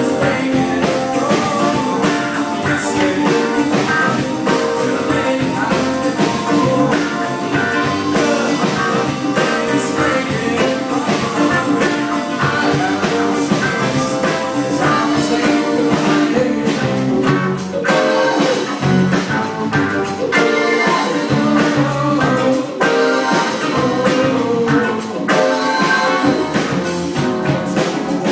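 Live band playing a bluesy rock tune during a sound check: guitar over a steady drum-kit beat.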